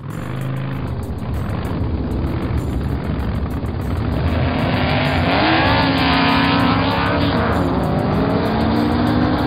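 Race car engine sound effects: several cars running at the start line, with an engine revving up and back down about halfway through. The sound grows louder.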